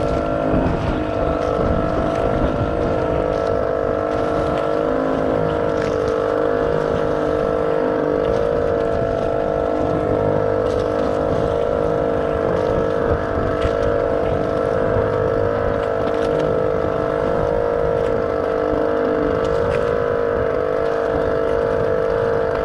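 A boat engine running steadily at a constant speed: an even hum with a slight waver in pitch.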